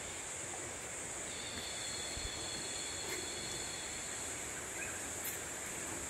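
Tropical rainforest ambience: a steady high insect drone with two thin, unbroken insect tones that come back in about a second in, over an even hiss.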